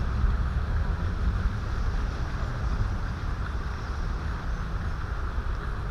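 Steady wind noise on the microphone: a low rumble with a faint hiss over it, and no goose calls.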